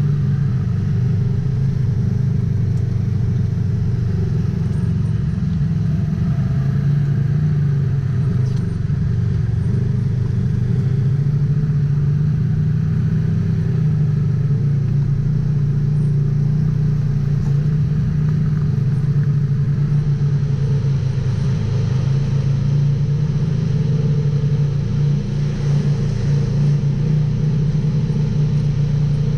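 Polaris RZR XP 1000 side-by-side's parallel-twin engine running at a steady speed, with a constant low drone and little change in pitch.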